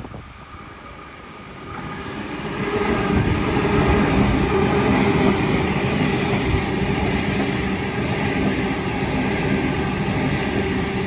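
Sydney Trains Waratah (A set) double-deck electric train passing close by: the noise builds over the first couple of seconds as it arrives, then holds as a steady rumble of wheels on rail with a steady hum over it.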